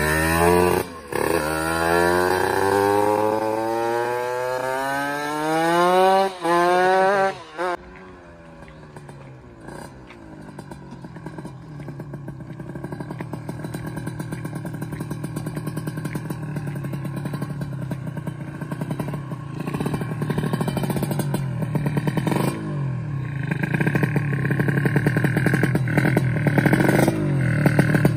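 Tuned two-stroke Kawasaki Ninja 150 drag bike with a racing exhaust accelerating hard, its pitch climbing through gear changes with brief cuts between them, then fading sharply into the distance about eight seconds in. It then grows steadily louder as the bike comes back at lower revs.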